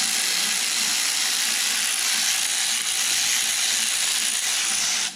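Impact gun hammering steadily for about five seconds as it runs down the engine's main-bearing girdle bolts to snug them before torquing, then cutting off suddenly.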